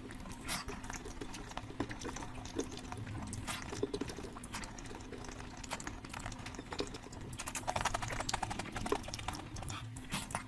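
Close-miked wet eating sounds: chewing and smacking on a mouthful of curry and rice, with a dense run of clicks late on.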